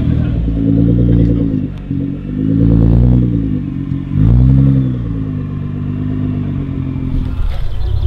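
Nissan GT-R Spec V's 3.8-litre twin-turbo V6, with a titanium exhaust and upgraded Y-pipe, revved three times while stationary, each rev climbing and falling back to idle, then idling steadily until the sound changes near the end.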